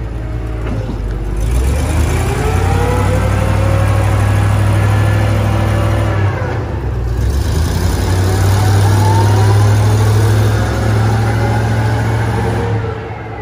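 Propane engine of a Royal T-500B 50,000 lb forklift revving up and running hard twice. It climbs about a second in and holds, dips around six seconds, climbs again and holds, then drops back near the end.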